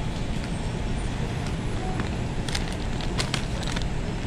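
Steady low rumble of a fast-food kitchen's background noise. From about two and a half seconds in there are several sharp crinkles as a paper takeout bag is handled and lifted.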